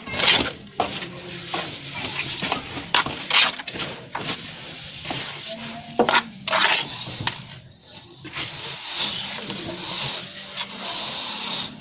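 Hand plastering trowel scraping and tapping wet cement mortar onto a concrete beam: a series of short scrapes and knocks, with a longer stretch of steady scraping near the end.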